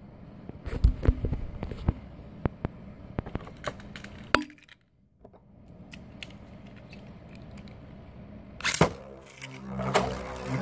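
Metal Beyblade spinning tops clicking and knocking against each other and the stadium in a battle: a run of sharp clicks, a short gap about halfway, and one louder crack near the end. A steady low hum comes in during the last second.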